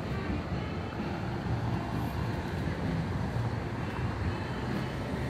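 Cars driving past on a town street, a steady traffic hum of engines and tyres.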